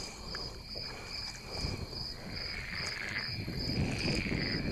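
Kayak paddling: water splashing and lapping against the hull as the paddle works, with an evenly pulsing high tone throughout.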